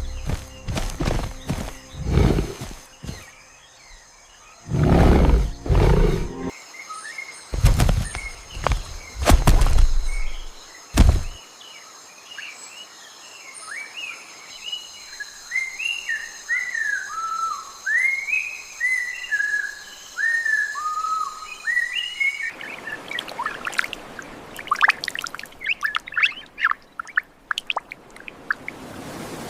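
Forest sound: a songbird sings a run of short, varied whistled notes over a steady high insect drone. Before it come loud, low rustling thumps, and after it a rush of noise with sharp crackles.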